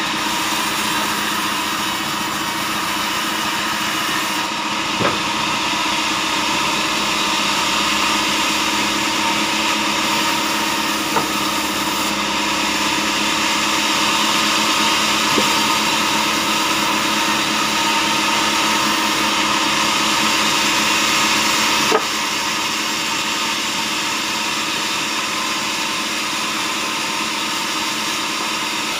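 Vertical band sawmill running steadily while its blade cuts a hard acacia log, the sawing hiss growing stronger through the middle. Four short, sharp knocks fall at intervals along the way.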